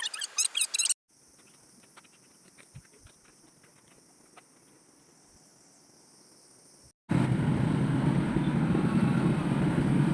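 Rapid high squeaks for about the first second, then a faint steady high-pitched insect drone with scattered light clicks. About seven seconds in, a loud low rumbling noise starts abruptly.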